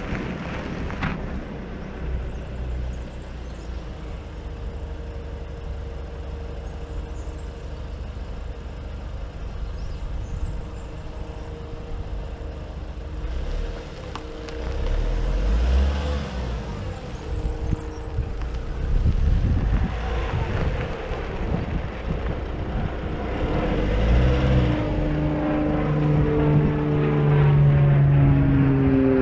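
Nissan Cabstar light truck's engine running as the truck drives slowly toward the microphone, growing louder near the end, with the engine note dropping slightly as it slows.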